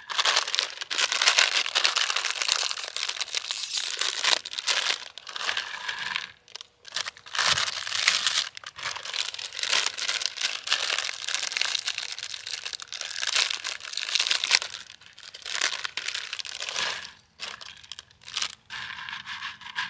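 Small plastic snack bags of Fritos corn chips crinkling and tearing as they are opened and handled, in irregular rustling spells with short pauses.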